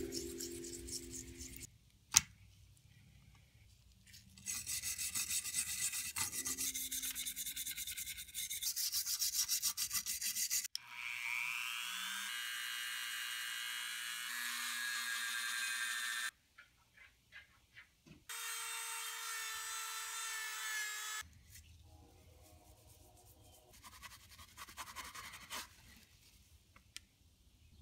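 Toothbrush scrubbing corroded knife parts in a gritty cleaning paste. Then a small handheld rotary tool spins up with a rising whine and runs steadily, working a small wheel against brass knife liners, in two stretches. Quieter rubbing follows near the end.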